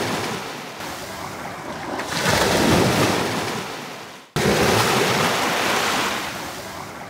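Waves washing up a sandy shore, surging and drawing back in slow swells. About four seconds in the sound cuts off abruptly and a fresh wave comes in at once.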